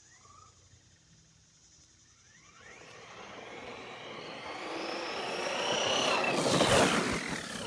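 Brushless electric RC truck (Redcat Landslide XTE, 2650 kV motor on a 3S LiPo) running flat out on asphalt toward the listener. A high motor whine climbs in pitch over tyre roar, growing louder from about two and a half seconds in and peaking as the truck passes close by near the end.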